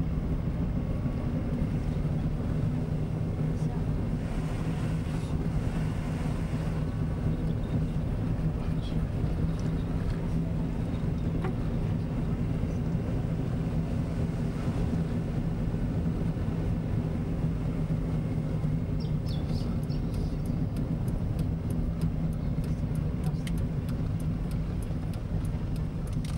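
Vehicle engine and road noise heard from inside the cabin while driving: a steady low drone with a constant hum. A run of light high clicks comes in during the last several seconds.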